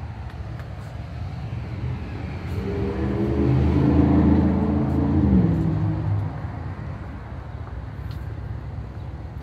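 A motor vehicle passing on the street: its engine grows louder from about three seconds in, peaks, and fades by about six seconds, over a steady low hum of street noise.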